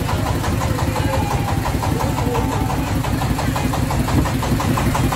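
Boat engine idling with a steady, rapid, even chugging beat.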